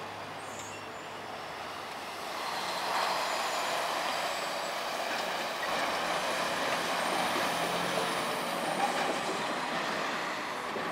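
Tractor-trailer truck driving past. Its engine and tyre noise grows louder about two seconds in and then holds steady as it goes by.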